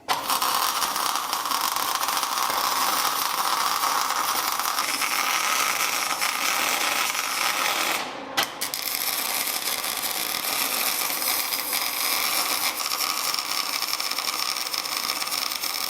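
Electric drill driving a homemade line-boring bar, the cutter spinning and cutting steel inside a bore: a steady motor whine over a grinding, chattering cut, broken off briefly about eight seconds in.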